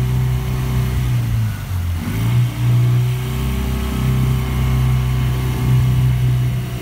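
Small outboard motor running steadily, pushing an inflatable dinghy under way. About a second and a half in, its pitch drops for a moment as the throttle eases, then picks back up about two seconds in and holds steady.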